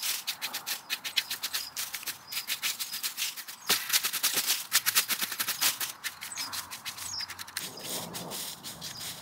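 Garden rake scraping through twigs and cones on the ground in quick, repeated scratchy strokes.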